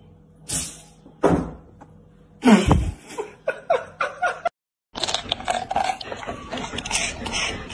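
Three loud, noisy bursts in the first few seconds, then a run of short choppy sounds; after a brief break, a golden retriever crunching a raw vegetable stalk, a fast run of crisp bites and chewing.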